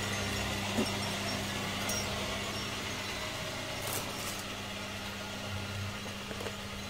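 Steady low hum of a shop interior's background noise, with a couple of faint ticks.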